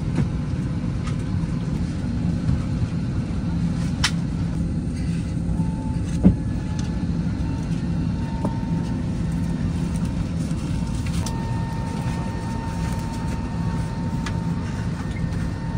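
Steady low cabin hum inside a parked Airbus A320 during boarding, the air-conditioning and ventilation running. A thin steady tone joins about eleven seconds in, and there are a couple of sharp clicks, the loudest about six seconds in.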